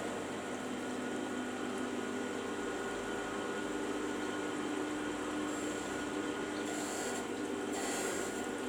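CNC milling machine running: a steady mechanical hum with several held whining tones.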